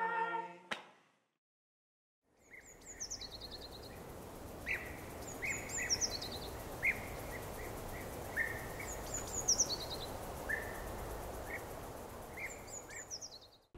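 Birds chirping over a steady background hiss, after about two seconds of silence. One call, a quick run of high notes stepping down in pitch, repeats about every three seconds among shorter single chirps.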